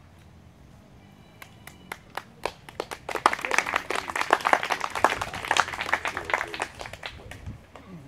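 A small audience clapping: a few scattered claps at first, building to a few seconds of steady applause that then dies away.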